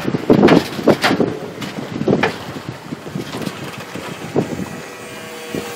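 Wind buffeting the microphone over choppy lake water, gusting hardest in the first two seconds and then settling into a steadier rush.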